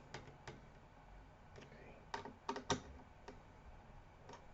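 Faint, irregular small clicks and taps, about eight of them, from a screwdriver on the CPU/GPU heatsink's screws as each is checked for full tightness.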